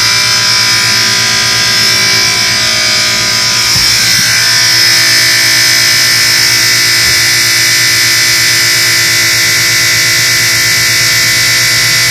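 Moffat dishwasher making a loud, steady buzz, with a high-pitched ring above the low hum.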